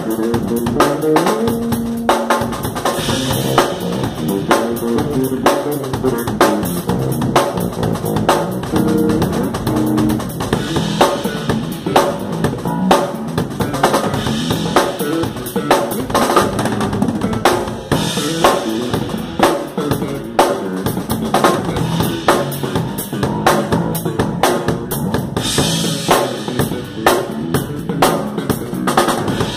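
Pearl drum kit and electric bass guitar playing a rock groove together: a steady beat of kick, snare and cymbals under a moving bass line.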